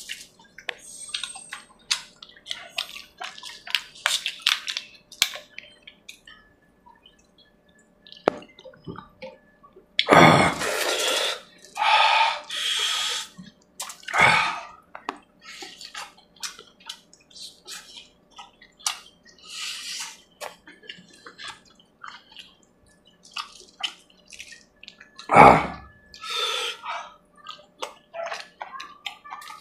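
Close-up wet eating sounds from a person eating curry with puri by hand: many quick lip smacks and chewing clicks, with a few louder, longer sucking sounds about ten, twelve and twenty-five seconds in.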